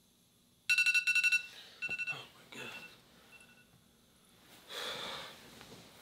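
An electronic alarm beeping in rapid bursts: a loud run of quick beeps, a shorter run a second later, then a couple of fainter beeps before it stops. A short breathy noise follows about five seconds in.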